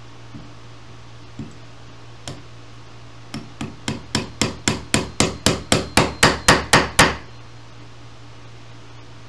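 Tack hammer driving upholstery tacks through jute webbing into an oak chair seat rail: three light taps, then a quick run of about fifteen blows, about four a second, growing louder and stopping about seven seconds in.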